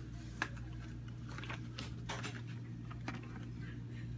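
Sterile latex gloves being pulled on and worked over the fingers: a few faint snaps and rustles, over a steady low electrical hum.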